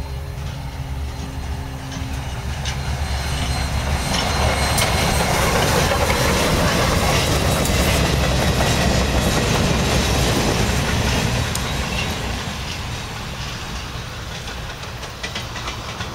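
Ex-Florida East Coast 4-6-2 Pacific steam locomotive #148 and its train passing close by. A rumble builds, is loudest through the middle and fades as it moves away, with the clickety-clack of wheels over rail joints.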